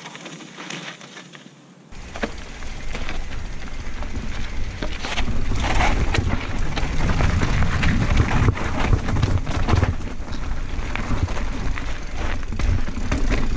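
Mountain bike descending a rocky dirt trail, heard from an action camera mounted on the bike: wind noise on the microphone, with the tyres crunching and the bike rattling and clicking over rocks. The first two seconds are quieter and thinner, then the sound turns loud about two seconds in.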